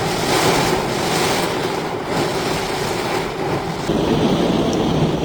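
A vehicle engine running under a steady rush of water, as of a car driving through floodwater, with the texture changing abruptly a couple of times.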